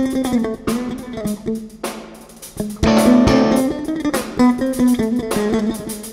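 Jazz band playing: electric bass guitar with electric guitar and drums.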